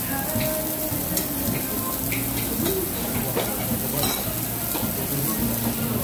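Iberico pork sizzling steadily on a grill, a continuous frying hiss with scattered small pops of fat.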